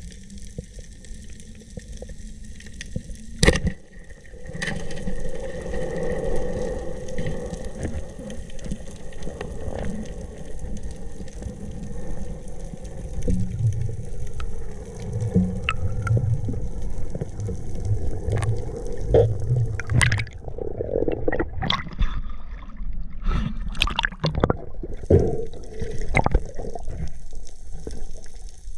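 Water sloshing and gurgling over a low rumble, with a sharp knock about three and a half seconds in and a run of clicks and knocks in the second half.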